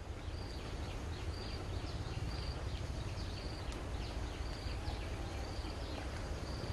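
Forest ambience: a short, high chirp repeats about once a second over a steady low rumble.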